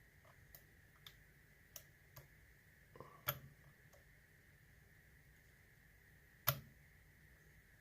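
Faint, scattered metallic clicks of a lock pick working the pin stack of a Yale 840 series padlock under tension, with sharper clicks about three seconds in and again about six and a half seconds in.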